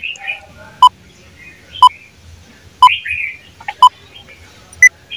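Quiz countdown timer beeping once a second, five short electronic beeps with the last one higher-pitched, and faint chirping between the beeps.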